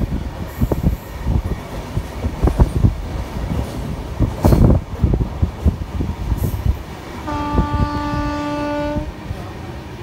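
Passenger train running, with irregular clattering and knocks from the wheels and coach and one heavy thump about halfway through. Near the end the locomotive horn sounds once, a steady blast of about two seconds.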